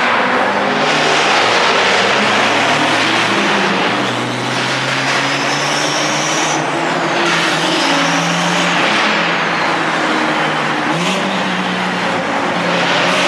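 Turbocharged car engine pulling hard under acceleration, its pitch shifting as it revs, with the turbo's high whistle rising over it twice in the middle.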